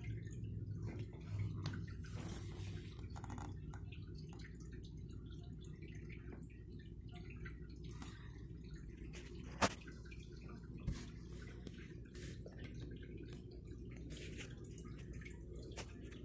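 Quiet indoor room tone: a steady low hum with scattered faint ticks. Two sharper clicks land about ten and eleven seconds in.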